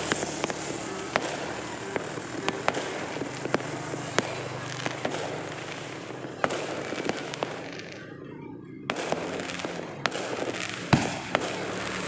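Fireworks and firecrackers going off: a dense, irregular crackle of scattered pops, with one louder bang about a second before the end.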